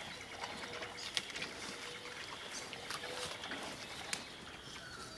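Pigs rooting through garden soil with their snouts and chewing what they dig up: scattered soft crunches and clicks.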